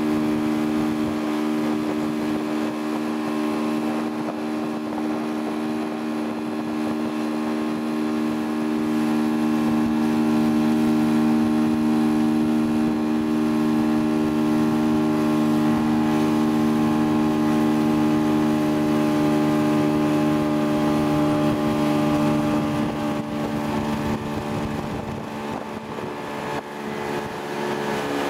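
Motorboat engine running steadily at towing speed, a continuous drone. Its level dips briefly near the end.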